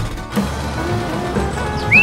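Background music, with a short rising whistle-like glide right at the end.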